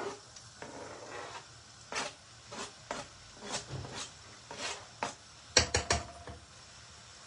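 Kitchen utensils knocking and clicking against cookware in sharp separate taps about every half second, then a quick run of four louder knocks a little after halfway.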